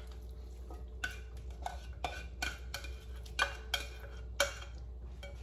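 A utensil scraping tuna salad out of a ceramic baking dish into a glass bowl: a quick series of short scrapes and taps, the loudest about three and a half to four and a half seconds in.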